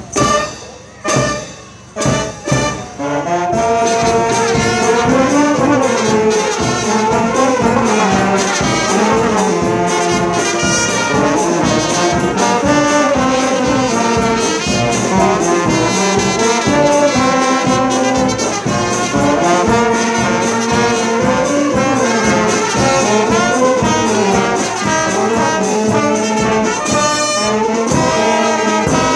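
Brass band of trumpets, trombones, saxophones and sousaphone playing a lively tune. About a second in it breaks off, with a few short punched notes, and then the full band plays on without a break.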